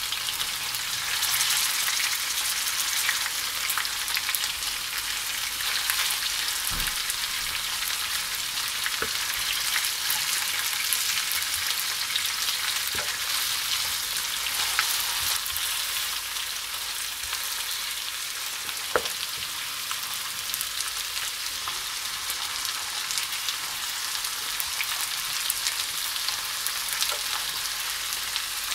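Chicken pieces and tomato halves frying in oil in a non-stick pan: a steady sizzling hiss, with a few short knocks of the spatula stirring against the pan.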